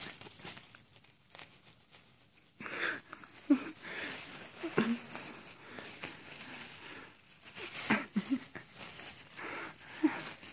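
Tissue paper crinkling and rustling in irregular bursts as a cat grabs and bites at it, with a few brief soft vocal sounds.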